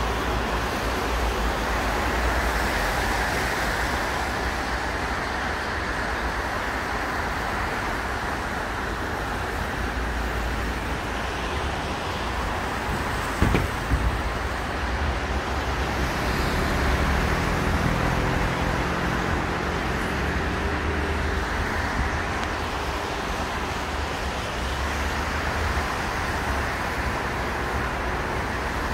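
Steady city traffic noise from cars on a wet multi-lane road, with one short sharp knock about halfway through and an engine's hum passing a few seconds later.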